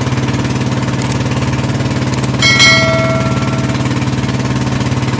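Outrigger fishing boat's engine running steadily under way, with a fast, even pulse. About two and a half seconds in, a bright notification-bell chime rings out and fades over about a second, following two faint clicks.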